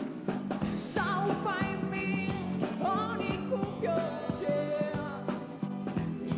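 Pop-rock song playing: a singing voice over band backing with drum hits and steady low bass and chord notes.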